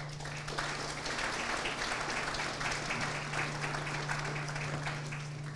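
Audience applauding, the clapping building up within the first second and tapering off near the end, over a steady low hum.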